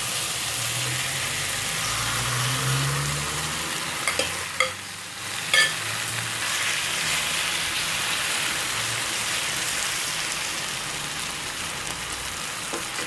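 Pork liver slices sizzling steadily as they fry in margarine in a hot wok, with a few sharp clicks around four to six seconds in.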